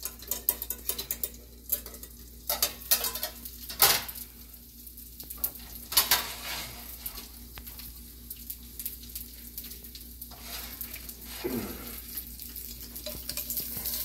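An egg frying in a non-stick skillet with a steady sizzle, broken by clatters of a metal pan lid, tongs and pan handled on the stovetop, with the loudest knocks about four and six seconds in and fewer after that.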